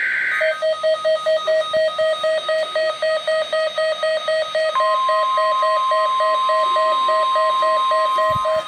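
Midland WR-120 weather radio alerting to a Required Weekly Test, muffled by tape over its speaker. A short buzz of digital header tones ends about half a second in, then the radio's alarm beeps rapidly, about four beeps a second. About five seconds in, a steady broadcast tone joins the beeping.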